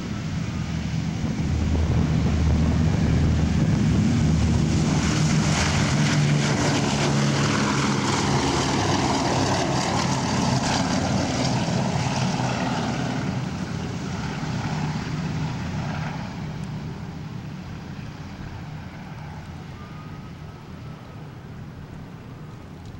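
A B-17 Flying Fortress's four Wright R-1820 Cyclone radial engines running at takeoff power as the bomber rolls past and climbs away. The loud, steady drone builds over the first couple of seconds, its pitch slides down midway as the plane passes, then it fades steadily.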